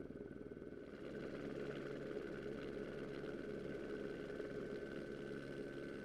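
An engine running steadily at an unchanging pitch, with a faint high whine above it; the sound shifts slightly about a second in and then holds even.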